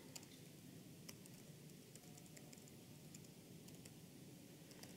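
Faint, irregular clicks of laptop keyboard keys as a terminal command is typed.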